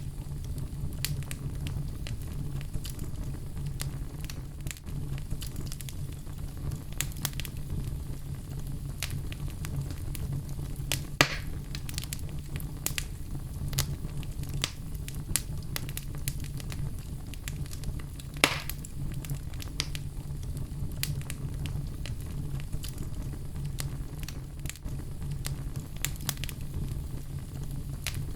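Outdoor fire crackling: many small scattered snaps over a steady low rumble, with two louder pops, one about a third of the way in and one about two-thirds in.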